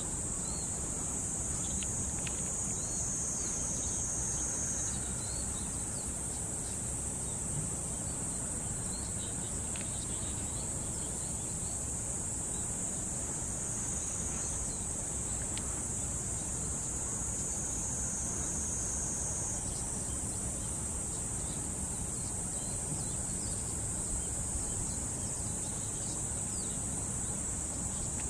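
A steady high-pitched insect chorus shrilling without a break, its pitch stepping slightly now and then, over a faint low rumble.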